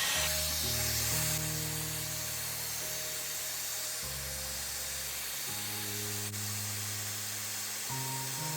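Hot-air gun blowing with a steady hiss, heating the phone's back glass to soften its adhesive, over soft background music with slowly changing chords.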